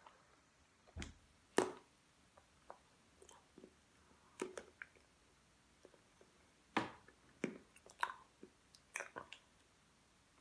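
A person chewing a mouthful of food. Scattered short, sharp clicks and crackles come every second or so as fingers handle a small packet.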